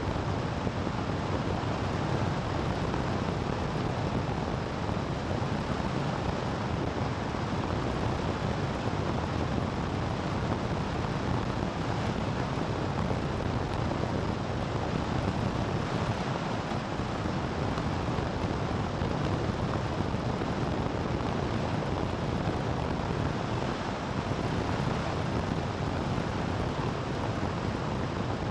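Steady wind and road noise from a vehicle driving at about 80 km/h on asphalt, heard as an even rush with no distinct engine note.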